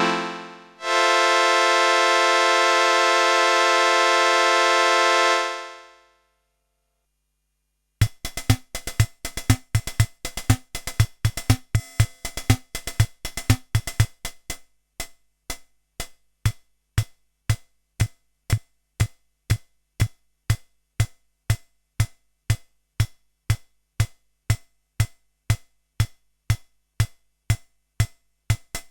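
Yamaha PSR-21 portable keyboard: a held chord on a reedy, accordion-like voice with vibrato fades out, then after a brief silence the built-in rhythm section starts an electronic drum-machine pattern of kick drum and ticking hits, busier at first and then settling into an even beat.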